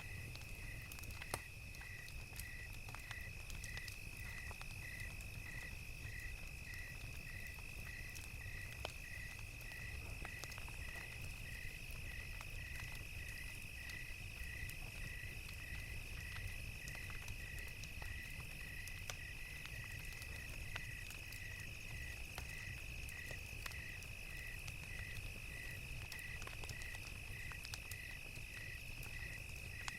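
Crickets chirping in an even rhythm, about one and a half chirps a second, over a steady high insect trill. Scattered crackles from a wood fire and a low rumble sit underneath, with one sharper pop about a second in.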